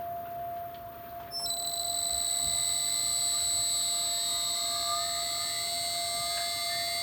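CNC router spindle switching on about a second and a half in, then running with a steady high-pitched whine. A steady lower hum runs beneath it throughout.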